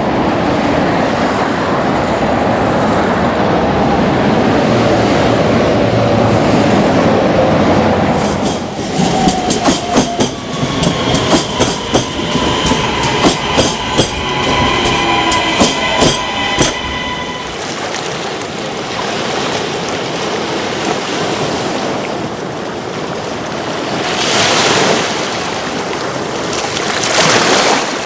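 Train running on rails: a heavy rumble at first, then a long run of clicking and clacking of wheels over rail joints with squealing tones, then steady rolling noise that swells twice near the end.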